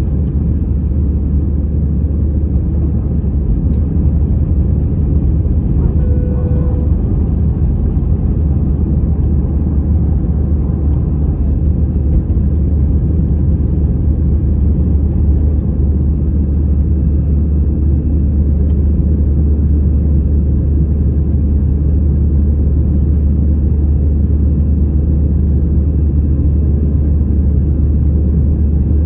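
Steady, loud low rumble of an Airbus A319's CFM56 jet engines and airflow heard from inside the passenger cabin during the climb after take-off. A short pitched tone sounds once, about six seconds in.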